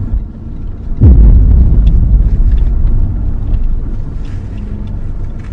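Low road and engine rumble inside a moving car's cabin. About a second in there is a sudden heavy low thump, followed by a couple of seconds of louder rumbling that slowly eases off.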